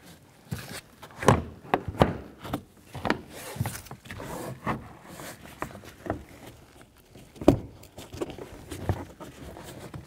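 Hard plastic interior door trim panel of a GMC Sierra pickup knocking and clicking against the metal door as it is worked onto the window ledge: an irregular series of sharp knocks, the loudest about a second and a half in and about seven and a half seconds in.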